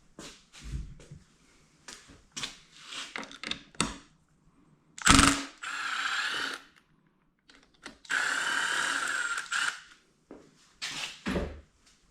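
Two short runs of a cordless power driver on the motorcycle's brake mounting bolts, about a second and a half and two seconds long, with a knock and clicks of tools and parts being handled between them.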